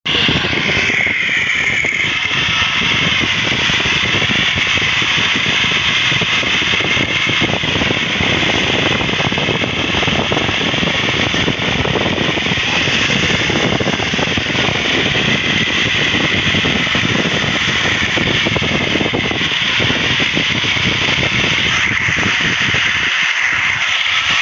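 Self-propelled corn harvester running as it picks a standing maize crop: steady, loud engine and machinery noise with a wavering whine on top.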